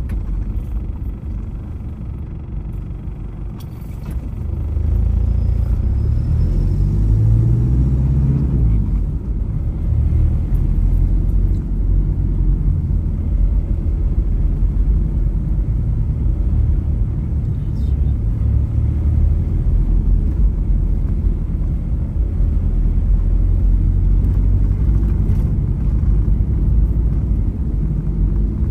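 Car driving: a steady low rumble of engine and road noise that grows louder about four seconds in as the car speeds up, with the engine note rising for a couple of seconds.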